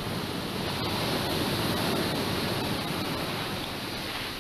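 Ocean surf: a wave rushing in and breaking over the rocky shore, swelling for about two seconds and then easing off.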